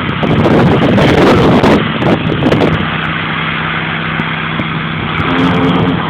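Pressure washer running steadily while its water jet blasts the dark weathered stain off wooden deck boards, a dense hiss over a steady motor hum. The spray is louder for the first few seconds, then settles.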